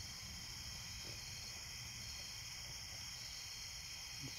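Steady high-pitched chorus of night insects, unchanging throughout, over a faint low rumble.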